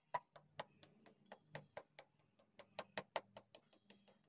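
A fork docking raw pie-crust dough in a metal pizza pan: quick, uneven taps, about four or five a second, as the tines prick through the dough to the pan.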